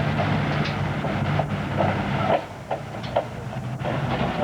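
Pro farm class diesel tractor running hard under load as it pulls the weight-transfer sled, a steady low engine drone with scattered metallic clanks. The engine sound drops noticeably about two seconds in.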